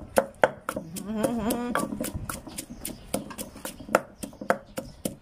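Wooden pestle pounding roasted chillies in a large clay mortar: a steady run of dull knocks, about three or four strokes a second. A short wavering vocal sound comes about a second in.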